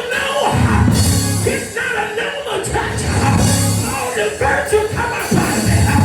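Live church band playing loud, rock-style music with a drum kit, the cymbals coming in and out in repeated surges over heavy low chords.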